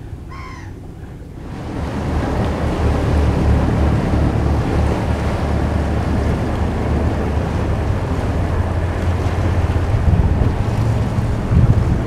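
Motorboat engines droning on the lagoon as a steady low hum, with water lapping against the stone quay and wind on the microphone. The sound comes in abruptly about a second and a half in.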